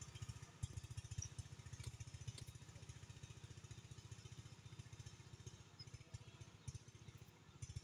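A small engine running steadily and faintly, a low, fast, even putter.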